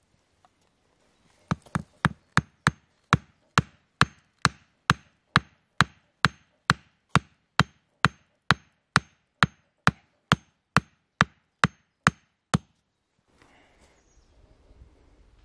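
Hatchet striking the top of an upright wooden stake, driving it into the ground with sharp, evenly spaced wooden knocks, about two a second. The knocks start about a second and a half in and stop a few seconds before the end.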